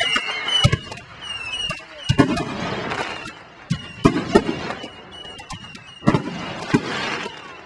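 Firework mortar shells bursting in the air: a string of sharp bangs, some in quick pairs, several followed by crackling.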